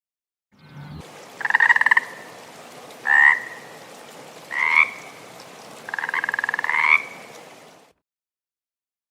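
An animal calling four times: short, rapidly pulsed calls, the last one longer and ending in a quick upward sweep.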